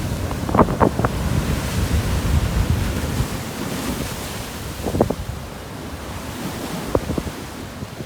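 Rough sea surf washing on the shore the day after a typhoon, with strong wind buffeting the microphone. A few brief louder moments stand out near the start and about five and seven seconds in.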